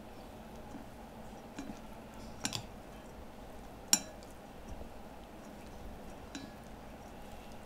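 A few scattered light clinks and taps of kitchenware as shredded chicken breast is mixed with seasoning sauce, the sharpest about four seconds in, over a low steady room hum.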